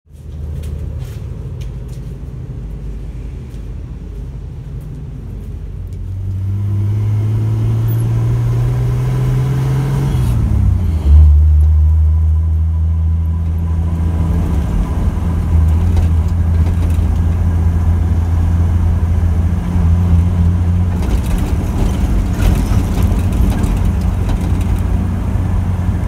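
An engine running steadily, rising in pitch over a few seconds about a quarter of the way in, then settling into a loud, steady, deeper note for the rest of the time.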